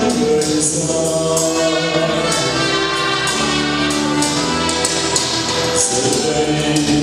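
A Vietnamese Catholic hymn sung by several voices with instrumental accompaniment and a steady, high, jingling percussion beat.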